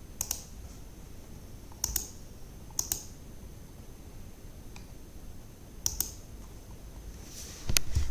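Computer mouse double-clicks: five short pairs of sharp clicks, one to four seconds apart.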